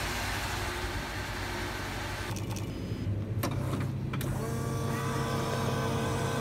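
A steady broad hiss of noise, then, a little over two seconds in, a hot-drink vending machine running as it dispenses into paper cups: a steady motor hum with a couple of clicks.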